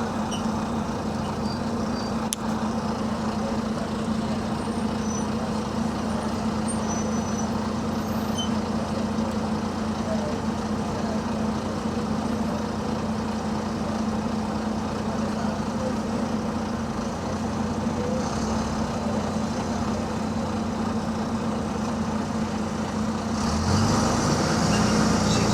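Diesel engine of a bus with an exhaust leak, running with a steady hum. About a second and a half before the end the engine gets louder and rougher.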